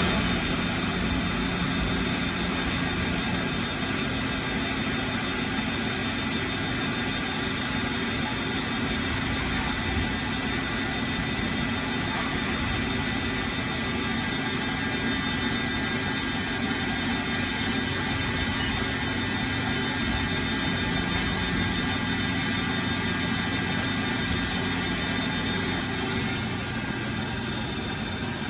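A 2013 Haas ST-20 CNC lathe running steadily, its spindle turning at a constant speed with a steady hum and whine over machine hiss. The tone shifts slightly near the end.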